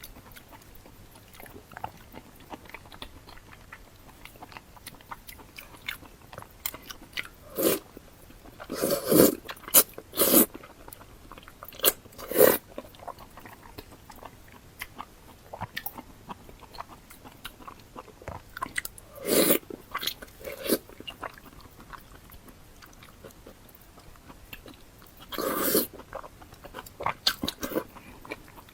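Close-miked eating: quiet chewing and mouth clicks throughout, broken by about seven loud crunchy bites. Four of the bites come a third of the way in, two about two-thirds in, and one near the end.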